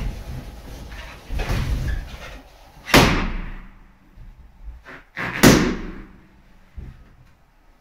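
Two latex balloons bursting under a person standing on them: two sharp bangs about two and a half seconds apart, each with a brief echo off the room.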